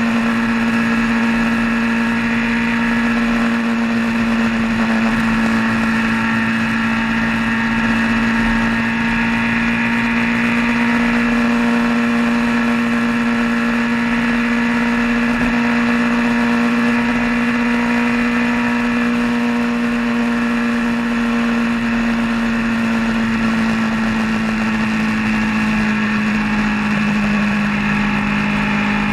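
A vehicle's engine running at a steady cruise on the road, with a constant low drone and road noise. The engine note eases slightly lower near the end.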